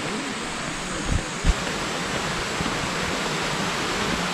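Steady rushing of a rocky mountain stream flowing over stones, with two short low thuds about a second and a half in.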